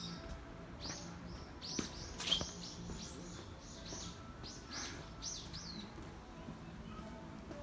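A small songbird calling in a quick run of high, short chirps that sweep downward, loudest about two seconds in and stopping near the six-second mark.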